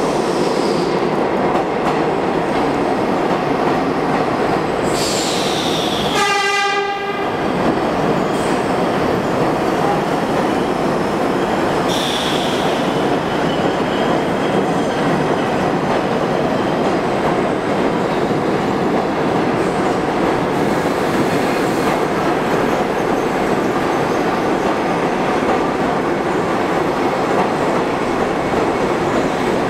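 Vintage R33/R36 subway cars passing through a station at speed without stopping, their wheels and running gear rumbling and clattering steadily. A horn blast of about a second sounds roughly six seconds in, and two brief high wheel squeals come about five and twelve seconds in.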